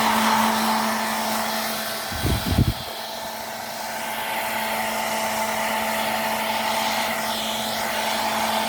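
Hair dryer running with a steady whir and hum. A short cluster of low thumps about two seconds in.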